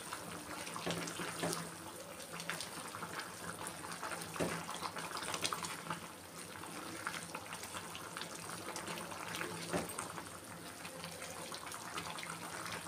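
Wooden spatula stirring a thick, simmering chicken curry in an unglazed clay pot: wet sloshing and squelching with irregular small knocks and scrapes against the pot.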